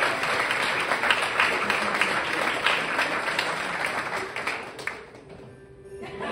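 Audience and cast applauding, a dense patter of clapping that dies away about five seconds in, leaving a faint steady tone.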